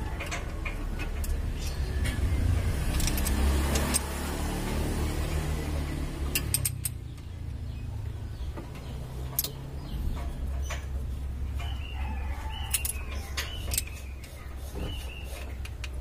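Wrench clicking and clinking on the rocker-arm adjusting screws of a Mitsubishi 4D56 diesel as the valve clearances are being set. A vehicle passes in the background during the first few seconds over a low steady rumble.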